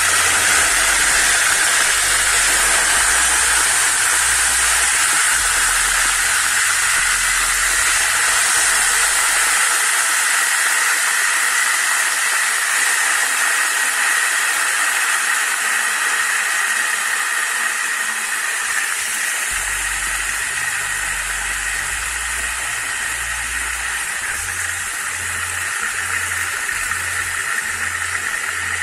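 Chicken pieces frying in hot oil in a pan: a loud, steady sizzle that eases slightly over the half minute.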